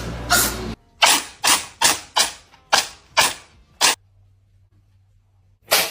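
A cat sneezing over and over in a fit: sharp, hissing sneezes about two a second for the first four seconds, then a pause of nearly two seconds before one more sneeze near the end.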